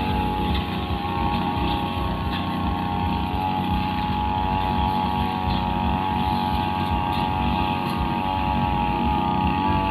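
Two-stroke brushcutter engine running at high, steady revs as it cuts grass with a blade, its pitch rising slightly near the end.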